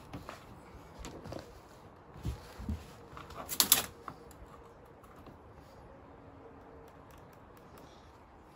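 Scattered light clicks and taps of a tape measure being handled on a sheet of hardboard, loudest in a short cluster of clicks a little past three seconds in.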